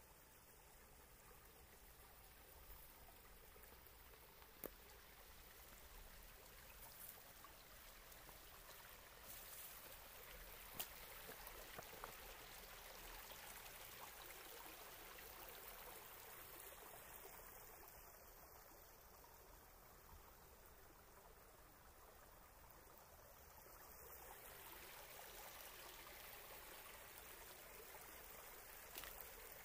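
Faint, steady rush of a small creek spilling over rocks and a tangle of branches in a low cascade, with a few brief ticks.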